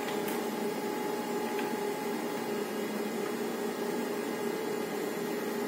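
Fujifilm DRYPIX Smart dry laser film printer running with a steady hum over a whirr as it delivers a printed calibration film, with one faint click just after the start.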